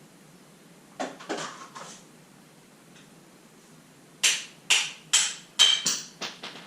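Hammer blows on metal, driving a seized bearing race out of a motorcycle's rear suspension linkage: three strikes about a second in, then a quicker run of about seven near the end.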